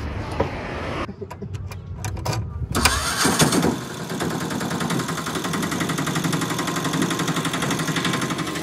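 CNG auto-rickshaw engine started about three seconds in, rising briefly, then idling with a steady, even pulsing.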